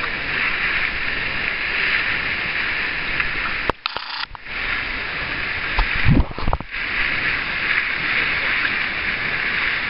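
Steam vent in the side of a mud pot hissing steadily, with a brief break about four seconds in and a few low thumps around six seconds.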